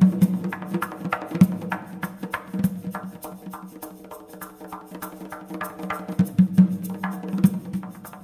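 Nagara, a large Azerbaijani barrel drum, played with the hands in fast, dense strokes, its deep tone ringing on the heavier beats. A hand-held wooden block clacks along with it.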